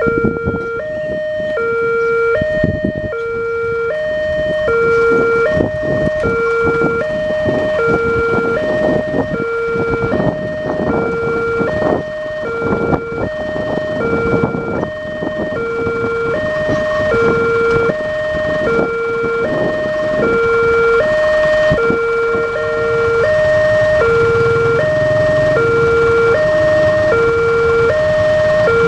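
Indonesian railroad crossing warning siren sounding a steady two-tone hi-lo alarm, alternating about once every half second. This is the crossing's new siren, pitched lower than its old one, warning road traffic that a train is coming. For much of the time, irregular clacking and rumbling run beneath it.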